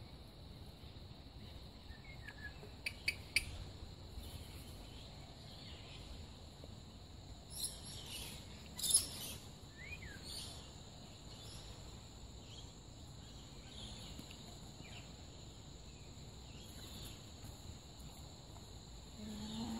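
Steady high insect drone, like crickets, with a few short bird chirps and squawks over it, the loudest about nine seconds in.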